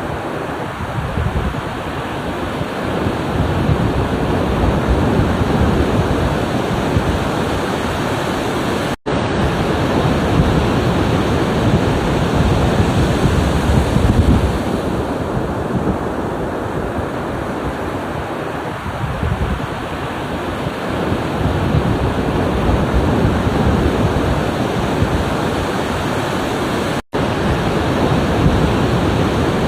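Ocean surf: waves breaking and washing steadily, swelling and easing every several seconds. The sound drops out briefly twice, about 9 seconds and 27 seconds in.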